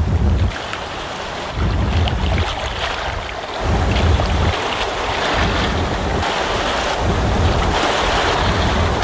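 Water rushing and splashing along the hull of a rowing skiff under way, with wind buffeting the microphone in low rumbling gusts every second or two.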